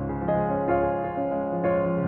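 Slow, gentle instrumental background music played on piano, with sustained notes changing every half second or so.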